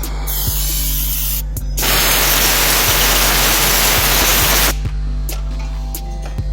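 A loud, steady spray hiss lasting about three seconds, starting about two seconds in and cutting off sharply, over background music with a steady beat.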